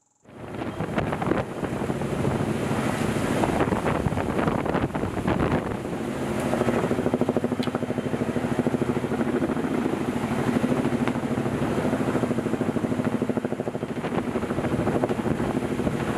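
Helicopter hovering low overhead while lowering a log load, its rotor beating rapidly and steadily, with rotor wash blowing across the microphone.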